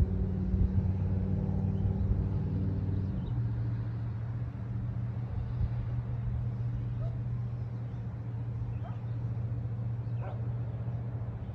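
An engine running steadily with a low, even hum. Its note shifts about three seconds in, then holds.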